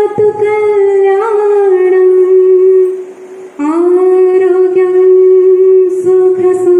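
A voice singing a slow melody in long held notes, with a brief pause about three seconds in.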